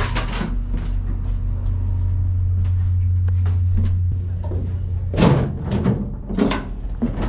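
Steady low hum of the stopped passenger train, with sharp door knocks: one at the start and two about a second apart near the end.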